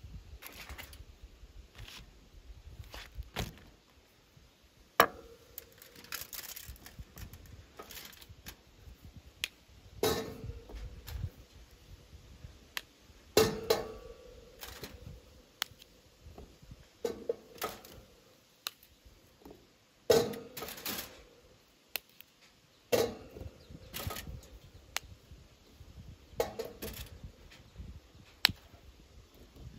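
Cookware and dishes being handled in a kitchen: scattered knocks and clinks every few seconds, several leaving a short ringing tone.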